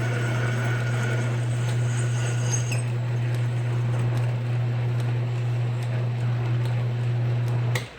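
Metal lathe running under power during a thread-cutting pass, a steady low hum with faint high cutting tones over the first few seconds. The machine shuts off suddenly near the end.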